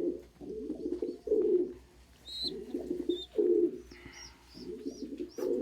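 Domestic pigeons cooing: a string of low coos, one after another. Near the end there is a quick row of faint, high chirps.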